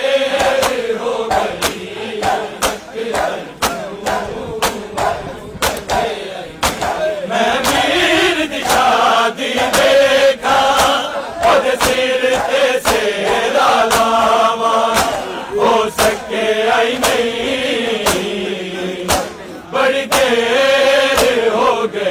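A crowd of men chanting a mourning lament in unison, with a steady beat of sharp slaps from matam, hands striking bare chests in time with the chant.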